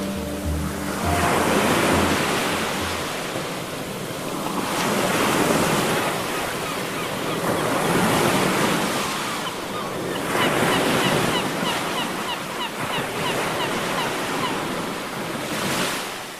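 Sea surf washing ashore, a rushing noise that swells and fades every few seconds as the waves come in, with wind on the microphone.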